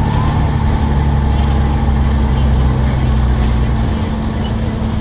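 Bus engine running under way with road noise, heard from inside the cabin: a steady low drone that eases off a little near the end.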